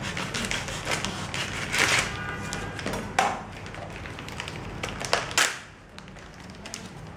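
Clear plastic bag crinkling and rustling in a few short bursts as a packed food box is pulled out of it, the loudest about two seconds in, with light taps, over a steady low hum.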